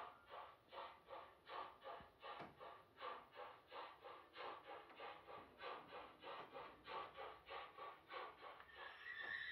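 Sound decoder (LokSound V4.0) in a brass model of the NS 6003 steam locomotive playing steady steam exhaust chuffs, about two and a half a second, as the model runs. A whistle-like tone comes in near the end.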